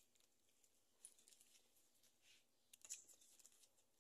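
Faint knife cuts through an onion onto a wooden cutting board: soft ticks in two short clusters, about a second in and again, a little louder, near three seconds.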